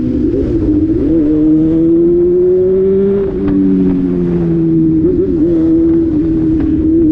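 Motorcycle engine running at a steady speed, its pitch drifting slowly up and down, with a few brief throttle wobbles.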